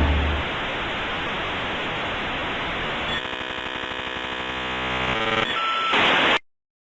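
Electronic static hiss, joined about three seconds in by a steady electronic buzz; both cut off suddenly into silence.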